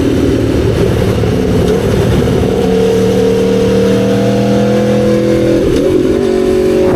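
Aprilia street bike engine running under way, its note climbing slowly, with a brief wobble in pitch near the end.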